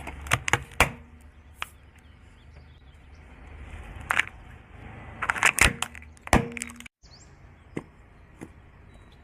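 Crunchy objects cracking and snapping as they are crushed: several sharp cracks in quick clusters, the loudest a little after five seconds in, then a few fainter cracks after a brief break near seven seconds.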